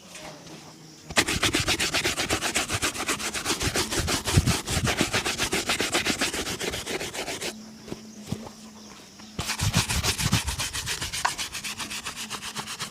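Shoe being buffed by hand with quick, even back-and-forth strokes during shoe polishing. There are two spells of buffing, with a pause of about two seconds between them.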